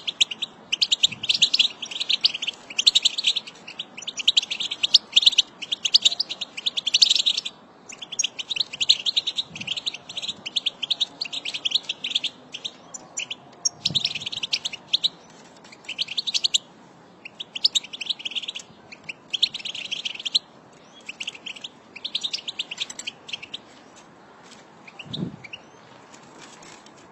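European goldfinch twittering: fast, high chirps run together in a dense chatter for the first several seconds, then come in short bursts with pauses between them, thinning out near the end.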